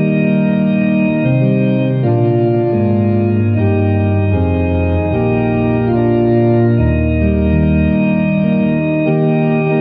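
Organ playing slow, sustained chords that change about every half second to a second, over a deep bass line.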